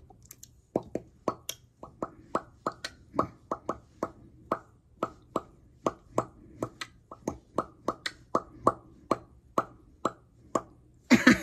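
A quick, slightly uneven run of mouth pops, about three a second, each a short hollow pop whose pitch shifts from one to the next as the mouth changes shape.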